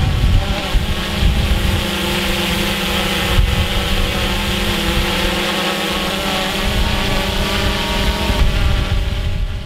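Small quadcopter drone hovering, its propellers giving a steady multi-tone whine, with gusty wind buffeting the microphone.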